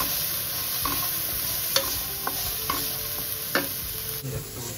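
Diced green beans and garlic sizzling in hot oil in a non-stick frying pan while a wooden spatula stirs them, with several light scrapes and knocks of the spatula against the pan over a steady sizzle.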